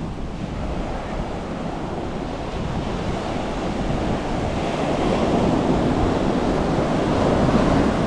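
Strong sea surf washing up on the beach, with wind buffeting the microphone; the wash swells louder about halfway through as a wave comes in.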